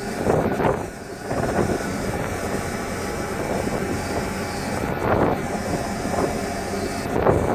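Strong wind buffeting the microphone in several short gusts, over the steady drone of a ship's engines and machinery.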